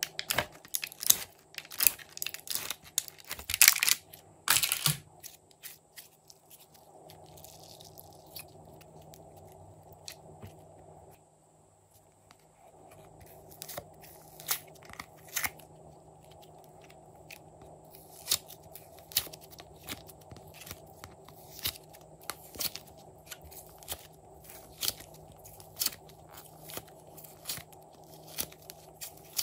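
Soft clay being scraped and pressed by hand into a clear plastic palette, making crunchy crackles and clicks: a dense run of them in the first five seconds, then scattered single clicks.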